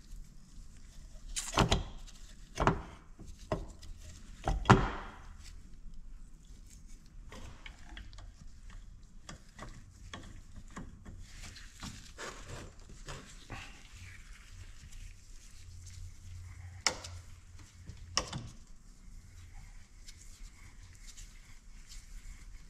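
Hand tools knocking and clicking on metal parts while a diesel engine governor is taken apart: a few sharp knocks in the first five seconds, then lighter scraping and clicking, with two sharp clicks about two-thirds of the way through.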